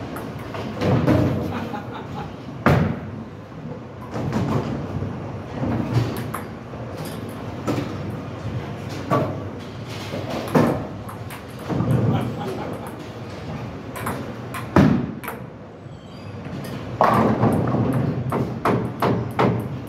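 Bowling ball rolling down the lane and crashing into the pins about three seconds in, with a second sharp knock a little before three quarters of the way through, over the chatter of the alley.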